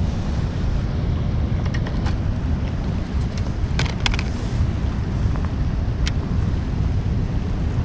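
Wind buffeting the microphone as a steady low rumble, with a few light clicks about two, four and six seconds in.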